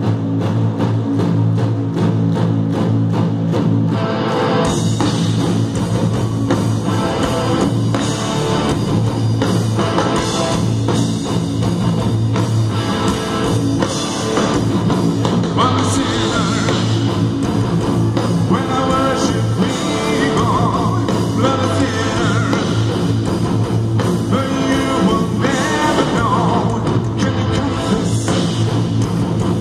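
Progressive metal band playing live through a large PA. It opens with a sparser repeating pattern, then the drums and guitars come in with the full band about four and a half seconds in and play on.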